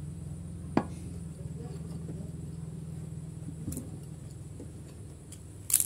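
A person eating rice by hand and chewing, with soft mouth and finger sounds over a steady low hum. A sharp click comes about a second in and another near the end.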